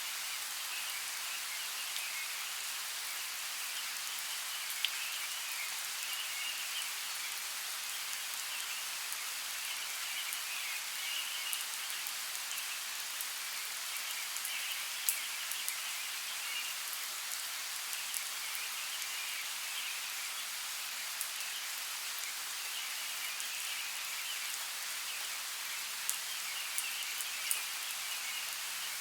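Steady light rain falling in a forest, an even patter with a few sharper drop ticks. A high chirring chorus of small animals comes and goes over it.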